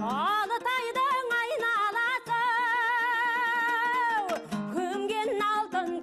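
Kazakh folk song: a high voice holds one long note with wide vibrato, gliding up into it at the start and sliding down off it about four seconds in before moving on, over a plucked string accompaniment.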